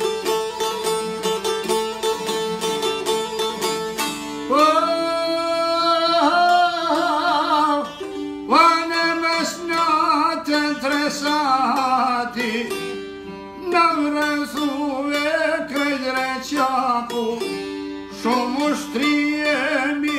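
Albanian folk song played on long-necked plucked lutes, with fast repeated plucked notes. About four and a half seconds in, a singer's voice enters over the strings with long held, ornamented notes.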